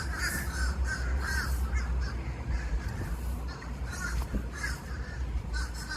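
Crows cawing over and over in quick, short calls, with a steady low rumble underneath.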